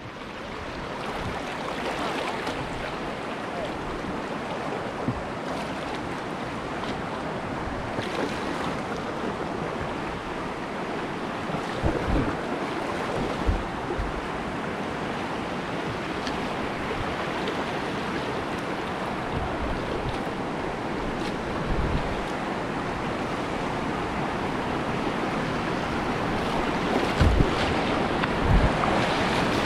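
River whitewater rushing steadily through a rapid, with wind on the microphone making occasional low thumps.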